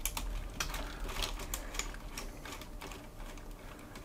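Plastic LEGO Technic parts clicking and rattling as the telescopic boom of a LEGO Technic 42097 Compact Crawler Crane is pulled out by hand, its ratchet released so the boom slides freely. The clicks come thick in the first two seconds and thin out after.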